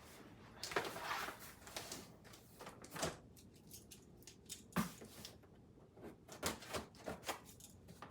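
A cardboard lamp box being handled and opened: scattered rustles and scrapes of cardboard with a few sharp knocks.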